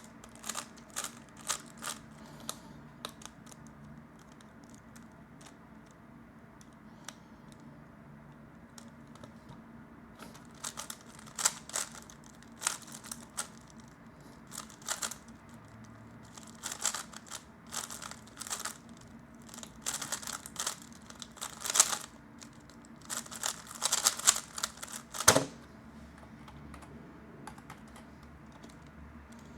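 3x3 Rubik's speedcube being turned fast: bursts of quick plastic clicking and clacking from the layers, a brief run at first, then a pause, then long rapid runs ending in one sharper knock near the end.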